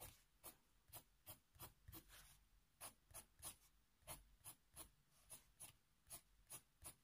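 Faber-Castell Polychromos coloured pencil hatching on paper: short, quick strokes at about three a second, faint.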